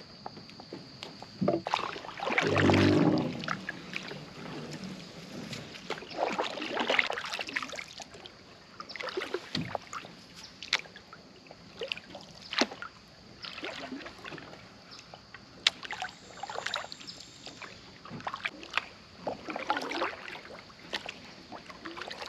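A small paddle craft being paddled: paddle strokes swish through the water every second or two, with sharp knocks of the paddle against the hull and a heavier thump about two seconds in.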